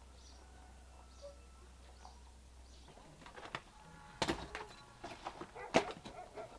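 Loose stones and rubble knocking and clattering as a man sorts through them by hand, with a few sharp clacks in the second half. Before that there is only a low hum and a few faint bird chirps.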